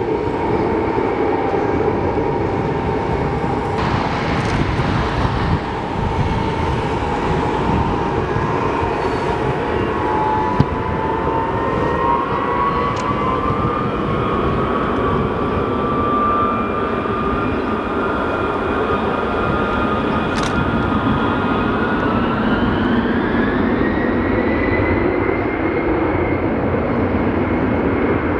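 Tupolev Tu-154M's three rear-mounted turbofan engines running, a whine over a steady rush of jet noise heard from a distance. About halfway through the whine climbs steadily in pitch as the engines spool up toward takeoff power, then holds high near the end.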